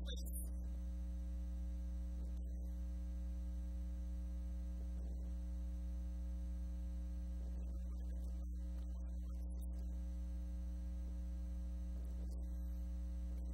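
Steady electrical mains hum: a low buzz with a stack of steady overtones, unchanging throughout.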